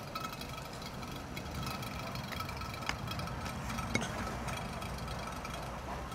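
Steady low mechanical rumble, like a running engine, with faint high tones above it and two faint clicks about a second apart near the middle.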